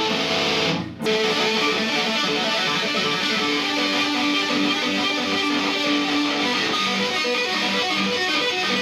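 Guitar playing a fast, busy run of notes, with a brief break about a second in and one long held note in the middle.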